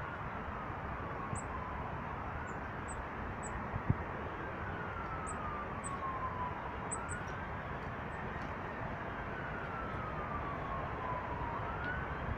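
Emergency-vehicle siren wailing faintly, slowly rising and falling in pitch every few seconds, over steady outdoor background noise. Short high bird chirps are scattered through, and a single thump comes about four seconds in.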